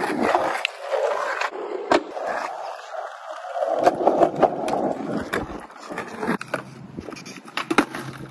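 Skateboard rolling on asphalt, with repeated sharp clacks of the board hitting the ground.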